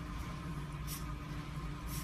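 Two brief fabric rustles, about a second in and near the end, as a French Bulldog puppy rolls and rubs in a plush dog bed, over a steady low hum with faint tones.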